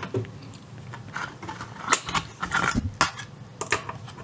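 Irregular mechanical clicks and knocks from a Philips AG 1025 record changer being handled, with its record lifted off the platter.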